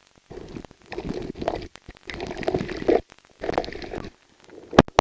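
Muffled underwater sloshing and bubbling in uneven bursts of under a second each, heard with the microphone under the sea surface, with a sharp knock near the end.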